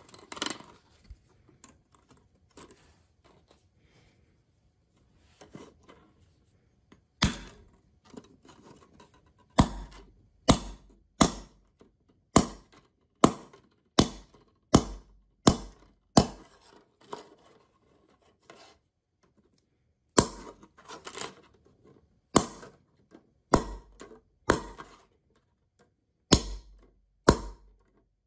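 A steel claw hammer knocks the zipper joints of 3D-printed plastic interlocking tiles together on a wooden board. A few seconds of quiet plastic handling come first. Then come sharp knocks, about one a second, in several runs with a few seconds' pause in the middle.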